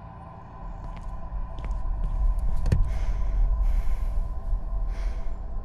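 Dark film-score drone: a low steady hum with a held tone above it, swelling in loudness over the first few seconds. A few faint clicks and a falling swoop come about two and a half seconds in, followed by airy whooshes.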